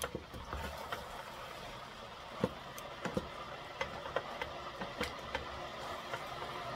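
Glass electric kettle heating water with a steady rushing hiss that slowly grows louder, under irregular knocks and scrapes of a wooden spoon stirring vegetables in a stainless steel pot.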